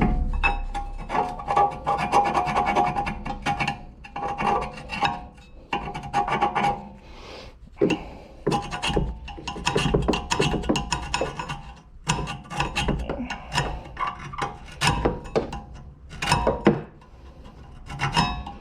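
Repeated scraping strokes on a steel brake caliper carrier, clearing rust and brake-dust debris from the pad seats. The strokes come in irregular bursts, with short pauses between them.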